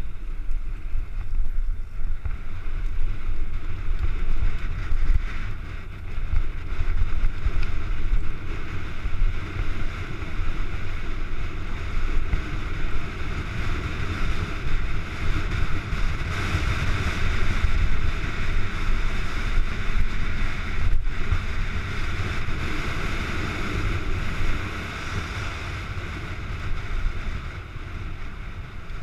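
Wind buffeting a helmet camera's microphone on a fast mountain-bike descent, over the rumble of a Norco mountain bike's tyres on a dirt and gravel trail. The noise eases somewhat near the end as the bike slows.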